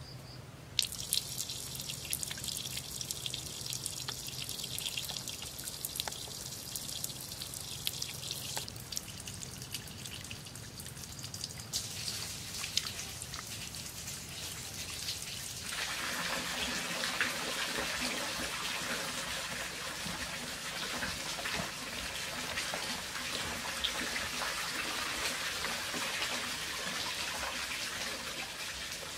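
Water trickling and dripping from a split-bamboo channel, starting about a second in. About halfway through the flow grows fuller, a steady rush of running water.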